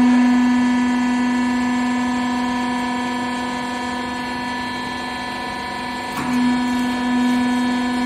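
Hydraulic power unit of a twin-ram rag baler running with a steady electric hum. A click comes about six seconds in, after which the hum grows louder again.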